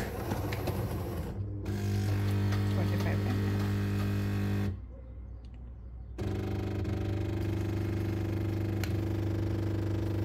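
Jura automatic coffee machine running with a steady buzzing hum. It stops for about a second and a half near the middle, then starts again.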